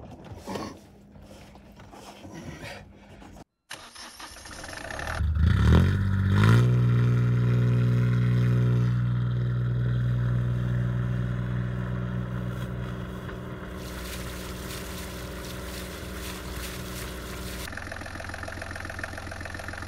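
Volvo Penta D1-30 three-cylinder marine diesel turning over on its starter, catching about six seconds in and settling into a steady idle. Before it starts there are a few light knocks of handling.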